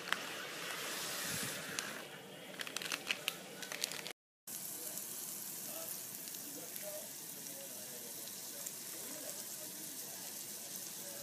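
A pot of water at a rolling boil hisses and bubbles as pearl couscous is poured in, with sharp crackling clicks over the first few seconds. After a short break, diced zucchini and garlic sizzle steadily in olive oil in a frying pan.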